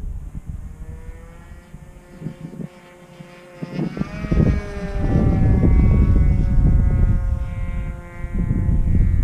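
Radio-controlled model airplane's .46-size engine buzzing in flight. It grows louder as the plane comes in and makes a fly-by about four seconds in, its pitch dropping as it goes past. Wind buffets the microphone through the second half.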